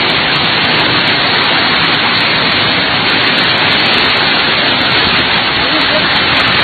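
Heavy rainstorm: a loud, steady hiss of driving rain and wind.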